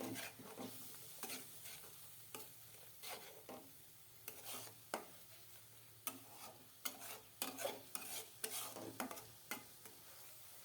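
Spice paste of fried onion, chili, turmeric, coriander and ginger-garlic being stirred and scraped around a karahi over faint sizzling, in irregular strokes: the masala being fried down (bhuna) before the meat goes in.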